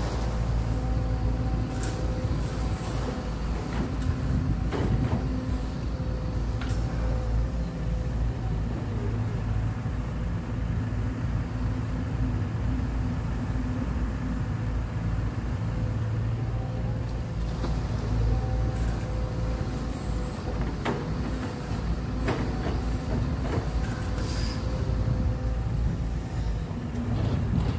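Sumitomo 210 hydraulic excavator's diesel engine running with a steady hum as it digs and loads a dump truck, mixed with the truck's engine. A few short knocks are heard along the way.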